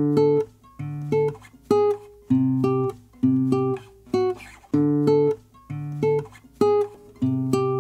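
Acoustic guitar music: chords strummed and plucked in a steady rhythm, about one chord a second.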